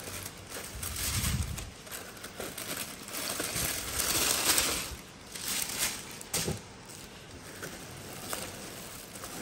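Tissue paper rustling and crinkling as it is peeled back in a box, then a thin plastic bag crinkling as it is handled. The rustle comes in irregular bursts and is loudest about four to five seconds in.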